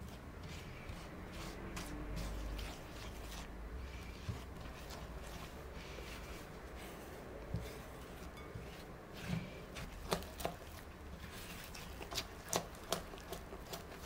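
Spatula stirring flour into an egg and sugar batter in a glass bowl: soft scraping, with light knocks of the spatula against the glass that come more often in the second half.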